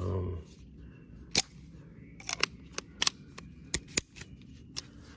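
Sharp, irregular clicks and taps, about ten of them, from tools working at the hose clamps on a bass boat's fuel tank fill line to loosen them.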